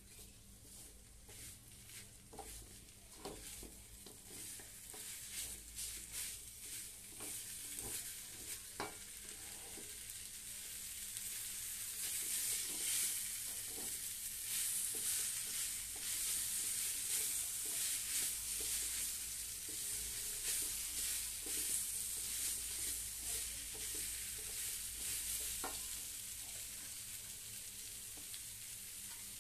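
Food frying in a pan, stirred with a utensil: scattered clicks and scrapes at first, then a steady sizzle that swells about twelve seconds in and keeps on under the stirring.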